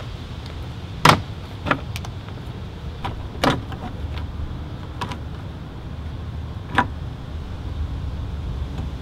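Plastic fan shroud pieces of an E39 BMW 5 Series being fitted back into place, giving a handful of sharp plastic knocks and clicks, the loudest about a second in, over a steady low rumble.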